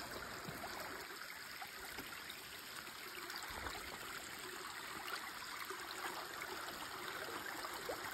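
Small mountain stream trickling over rocks beneath a timber footbridge, a steady running-water sound, with a few faint low thuds of footsteps on the wooden beams.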